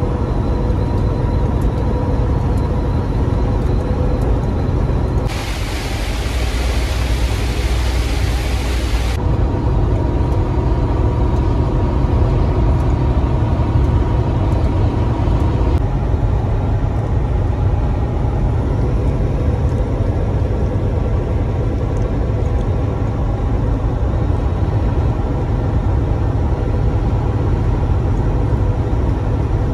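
Volvo semi truck cruising on the highway, heard inside the cab: a steady, loud low rumble of engine and road. About five seconds in, a loud hiss joins it for about four seconds and then stops abruptly.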